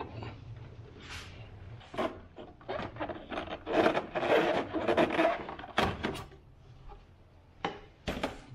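Hard plastic radiator cover panel being unclipped and pulled free: clicks and knocks of plastic clips, with a louder stretch of plastic scraping and rubbing around the middle, then a couple of knocks near the end as the panel is set down on a metal tool cart.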